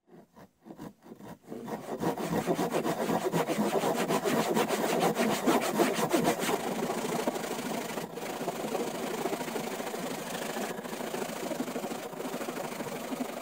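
Hand pruning saws cutting through logs: rasping back-and-forth strokes, a few separate ones at first, then a fast continuous run.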